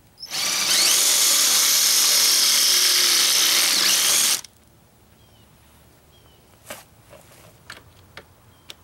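Hitachi cordless drill running at full speed, boring a pilot hole through a stainless steel piano hinge into a decking board; it runs steadily for about four seconds and then cuts off. A few light clicks follow near the end as the drill is repositioned.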